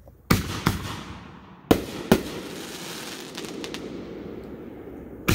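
Fireworks shells bursting: four sharp bangs in two close pairs in the first couple of seconds, each trailing off in a long fading echo, with another bang at the very end.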